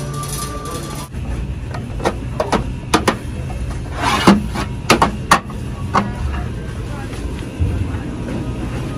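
Metal cans of coconut cream clinking and knocking against each other and the metal shelf as they are taken down: a handful of sharp clicks over a few seconds, the loudest a short rattle in the middle, over a steady low background hum.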